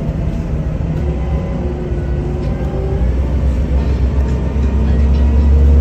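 Steady engine drone and road rumble heard from inside a NefAZ-5299 city bus under way, growing louder through the second half.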